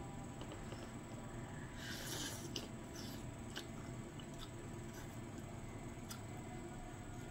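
A person slurping sotanghon glass noodles in soup off a spoon, with a hissing slurp about two seconds in, followed by chewing with soft wet mouth clicks.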